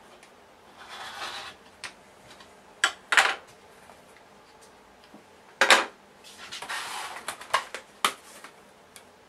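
Quilted fabric panels and an acrylic quilting ruler handled on a cutting mat: a few sharp knocks, the loudest about three and five and a half seconds in, and short stretches of rustling and scraping as fabric and ruler slide across the mat.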